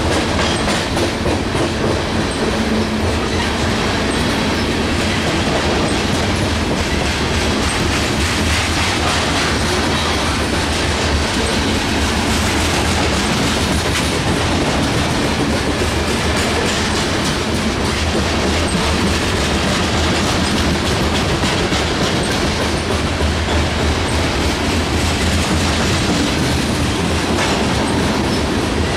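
Freight train of covered hopper cars rolling past: a steady noise of steel wheels on rail, with faint clicks of the wheels over the rail joints.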